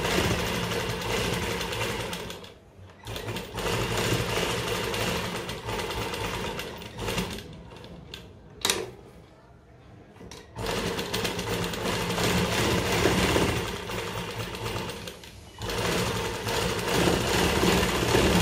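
A sewing machine stitches in runs. It stops briefly about two and a half seconds in, and again for about three seconds around the middle, where a single sharp click sounds, then runs steadily again.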